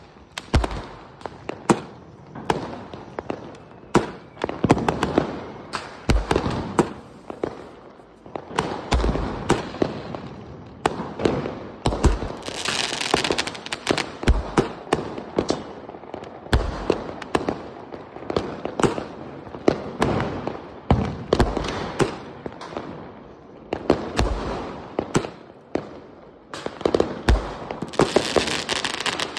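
A 120-shot sky-shot fireworks cake firing one shot after another: a dense run of sharp pops and bangs, with deeper thumps every one to three seconds. Twice, about a third of the way in and again near the end, a burst of hissing crackle rises over it.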